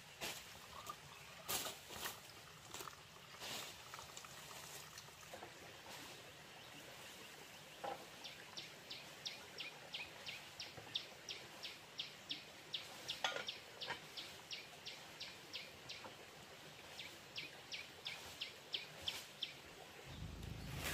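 Water splashing and slopping as a plastic basin and cooking pot are rinsed, in a few separate strokes. Then comes a long run of short high chirps, about four a second, outdoors.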